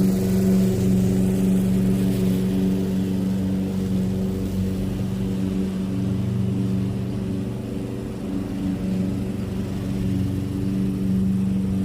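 Lawn mower engine running steadily, its level dipping and swelling a little as it works.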